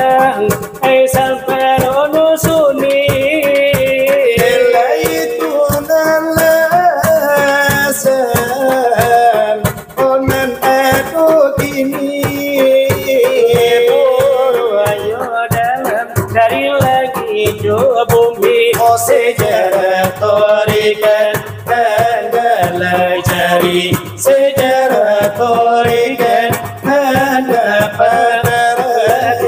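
Salawat dulang: two men singing Minangkabau devotional verses while beating large brass trays (dulang) with their hands in a quick, steady rhythm.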